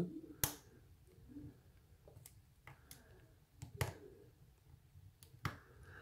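Sharp, scattered clicks of a small hook pick working the pins of an ERA Euro cylinder lock held under tension, as pins set at the shear line. The three loudest clicks come about half a second in, near four seconds and near the end.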